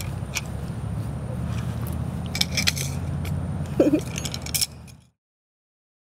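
Metal bangles jangling in scattered clicks as the hands wave, over a low steady rumble. The sound cuts off abruptly about five seconds in.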